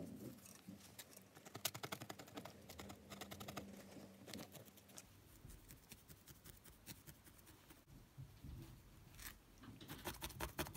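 A single felting needle jabbing repeatedly through wool into a foam pad: a run of quick, faint crunchy pokes that thins out in the middle and picks up again near the end.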